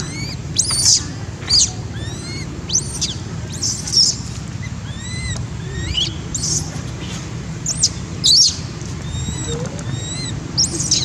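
Baby macaque crying in distress: a string of short, high-pitched arched squeals, one every half second to a second, over a steady low background rumble.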